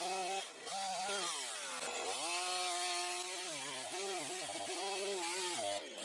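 Makita DCS5121 50 cc two-stroke chainsaw engine revving, its pitch rising and falling as the throttle is worked, with a deep dip about two seconds in before it climbs again.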